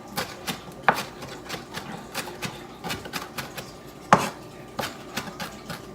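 Kitchen knife finely chopping fresh parsley by hand: quick, irregular taps, about three or four a second, with a couple of louder knocks.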